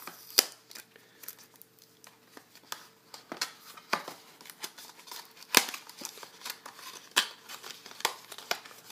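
Hands opening a small cardboard box and pulling at the tape on its bottom: irregular crinkling of paper card and tape, broken by sharp clicks and snaps, the loudest just past halfway.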